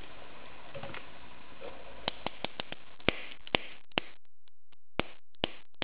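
A bump key in an Ezcurra DS15R six-pin lock cylinder being tapped with a screwdriver handle. Sharp metallic clicks start about two seconds in and come irregularly, roughly two to five a second, as the blows jar the pin stacks to bump the lock open.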